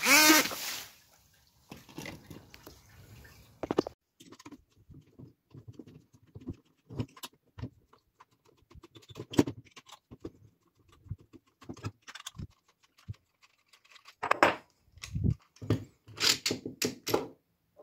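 Handling sounds of a small 3D-printed RC jet pump being taken apart on a wooden desk: scattered clicks, taps and knocks of a screwdriver and plastic parts, busiest and loudest near the end. At the very start, the last half second of the running jet pump cuts off.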